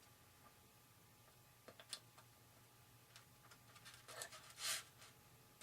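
Near silence with faint handling of small model parts: a few light clicks, then a short scratchy scrape about four and a half seconds in.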